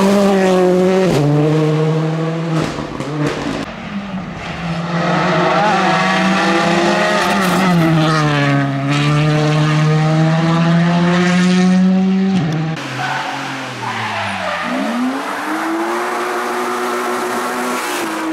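Rally cars driven flat out past the roadside one after another, engines revving hard, the pitch climbing and dropping at each gear change, with tyres sliding.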